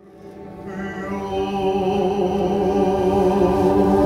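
Live contemporary worship band music: sustained keyboard chords with singing, fading in over the first couple of seconds.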